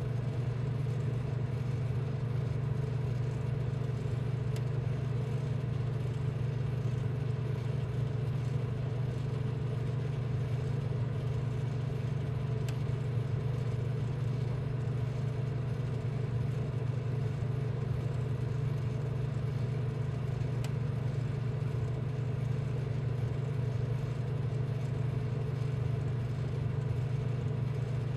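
A steady, unchanging low machine hum with a few faint higher tones over it.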